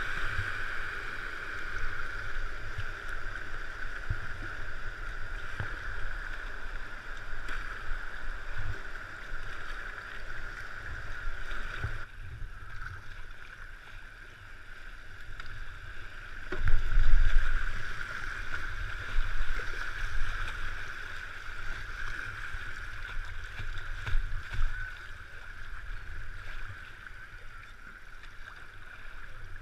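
Fast-flowing river water rushing around a whitewater kayak as it is paddled downstream, a steady hiss with irregular low rumbles, the loudest about 17 seconds in.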